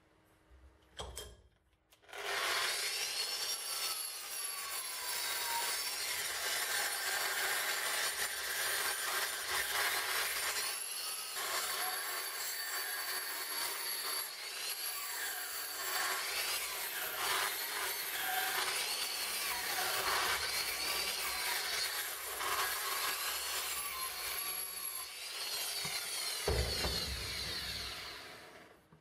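A power-driven rotary wire brush scrubbing rust off the pitted steel of a mortar part held in a vise. The scratchy, high-pitched noise starts about two seconds in, runs steadily, and winds down near the end.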